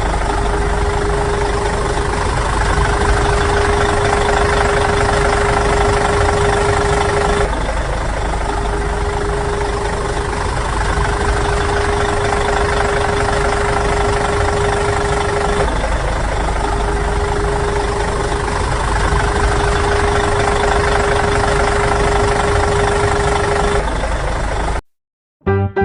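Engine idling sound, a steady rumble with a constant hum, repeating in identical stretches about every eight seconds like a looped sound effect; it cuts off suddenly near the end.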